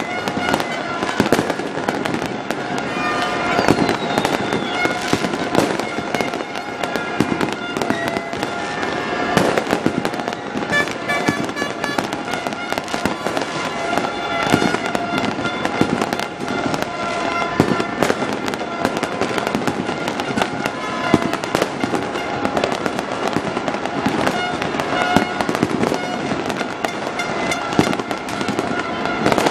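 Fireworks going off in a continuous barrage of bangs and crackles, with steady droning tones underneath.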